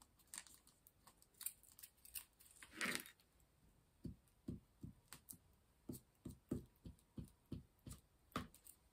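Scissors snipping at a strip of sheet-music paper glued around a wax pillar candle: a quick run of short, quiet snips, about two or three a second, over the second half, after a brief rustle of paper about three seconds in.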